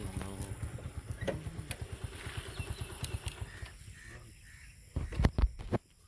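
Handling and rustling noise from a phone carried through tall grass: a fast run of dull thumps, then a few loud knocks about five seconds in.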